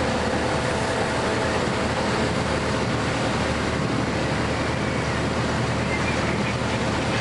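Steady engine hum and road noise inside the passenger cabin of a LiAZ-4292 city bus while it drives along, with a faint steady whine mixed in.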